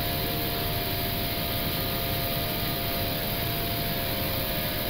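Airbus A320 flight deck noise in the initial climb: a steady rush of airflow and engine noise at climb thrust, with a few faint steady tones underneath.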